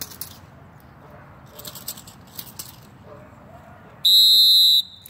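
A single loud, steady high-pitched tone, lasting under a second and starting and stopping abruptly, about four seconds in. Before it, faint scuffs and rustles.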